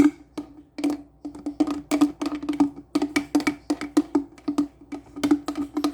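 A hard container knocked again and again, several quick uneven knocks a second, each with a short hollow ring, as its last contents are tapped loose.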